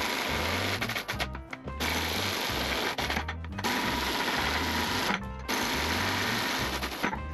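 Background music with a pulsing bass line under a dense, full-range sound, breaking off briefly four times.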